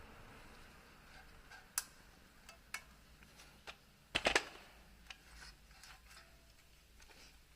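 A few sharp metallic clicks, then a quick cluster of louder knocks about four seconds in: tools and brake parts being handled during a rear brake pad change.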